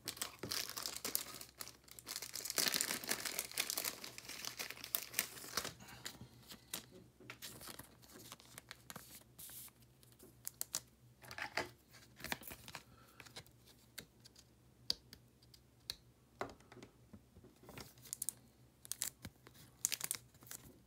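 Plastic crinkling and rustling as a trading card is handled in a soft plastic sleeve and slid into a rigid plastic toploader. The first several seconds are dense crinkling; after that come scattered short rustles and light ticks.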